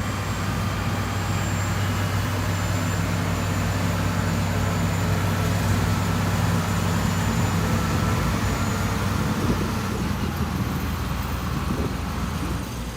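Heavy diesel earthmoving machinery running steadily with a low engine drone.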